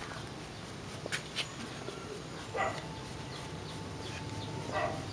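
Two short animal calls over a steady background, one about halfway through and one near the end, with faint high chirps of small birds and a couple of light clicks just after a second in.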